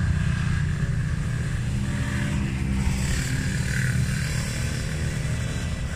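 Steady low rumble of road traffic, with a motor vehicle's engine note passing about two seconds in.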